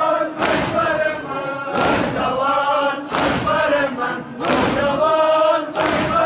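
A crowd of men chanting a Shia noha lament in unison, with chest-beating (matam): their hands strike their chests together in a steady beat, about one strike every 1.3 seconds.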